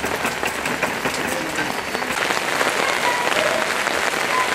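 Steady rain pattering, a dense even crackle of drops.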